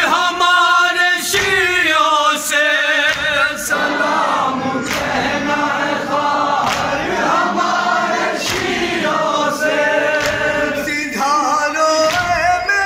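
Men reciting a Shia noha (mourning elegy): a lead voice with vibrato, joined by a group chorus in the middle, over regular strikes of matam (chest-beating) about once a second.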